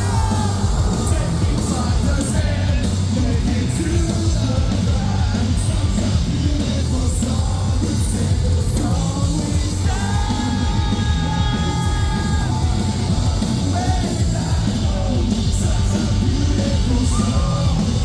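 A live metalcore band playing loud, heavy music through a PA, with yelled vocals over dense drums and distorted guitars.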